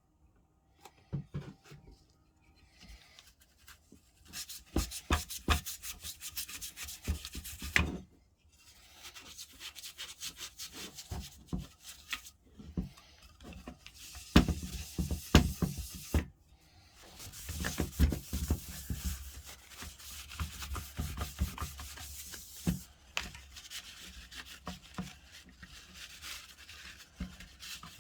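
Hand work on a tool: irregular runs of scraping and rubbing strokes with sharp clicks, broken by short pauses.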